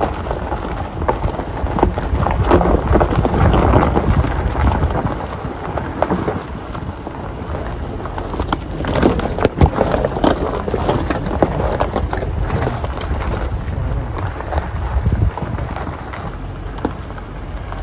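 Car tyres rolling over a loose gravel and rock track: continuous crunching and crackling of stones under the wheels, over a low rumble.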